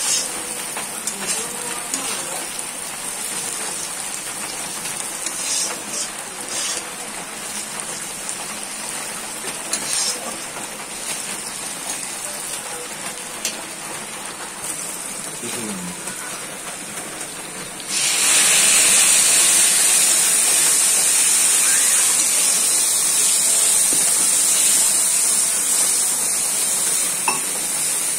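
Sliced onions frying in hot oil in an iron kadai: a steady sizzle with a few scrapes and clicks of a metal spatula. About two-thirds of the way through the sizzle jumps suddenly louder and hissier as a wet masala hits the hot oil, and stays loud.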